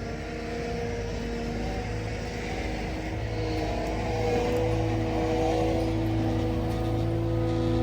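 Cat 299D2 skid steer's diesel engine running steadily, getting louder about three to four seconds in as it is throttled up.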